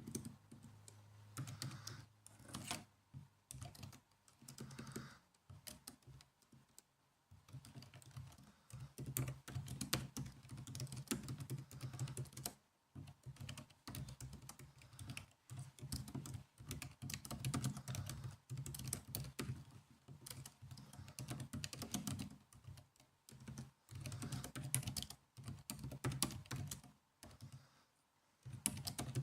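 Typing on a laptop keyboard: quick runs of soft key clicks, broken by short pauses, one near the end of about a second.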